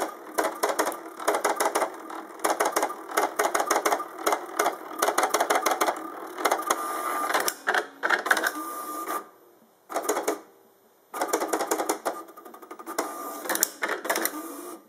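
Hewlett-Packard 7475A pen plotter running its built-in test plot: the stepper motors driving the pen carriage and paper buzz and chatter in quick bursts, with short whines, as the pen draws. It falls quiet briefly twice about two-thirds of the way through.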